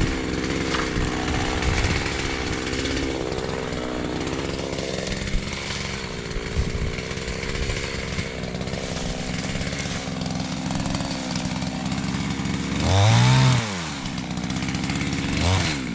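Erman two-stroke petrol chainsaw idling steadily, revved up hard for about a second around thirteen seconds in and again just before the end.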